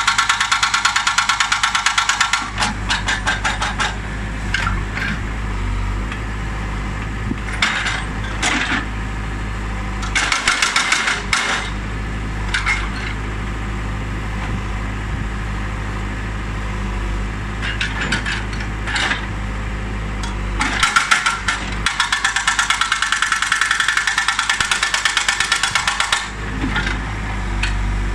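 Hydraulic breaker on a Case backhoe loader hammering limestone in bursts of rapid blows, the longest at the start and from about 21 to 26 seconds in. The backhoe's engine runs steadily underneath.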